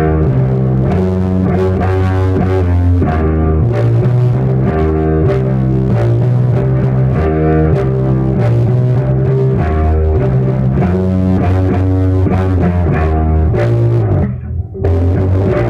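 Rickenbacker 4001 electric bass played through a Lone Wolf Audio Iron Fist overdrive pedal into an Ampeg V4B tube amp head: a loud, gritty riff of fast-changing low notes, with a brief break near the end.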